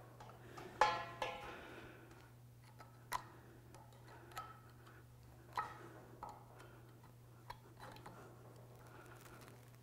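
Faint, scattered clicks and taps of hands handling a ball and trunnion driveshaft and its wires while working a rubber boot over the joint, the sharpest one just under a second in. A steady low hum runs underneath.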